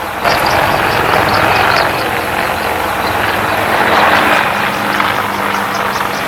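Aircraft, likely a helicopter, flying overhead: a loud, steady noise that comes in suddenly at the start. It is the strange sound from the sky that startles a panda.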